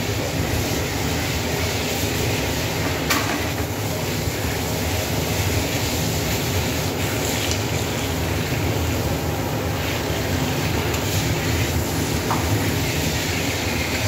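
Industrial washing machine running with a steady rumble and rattling clatter. A single sharp knock about three seconds in.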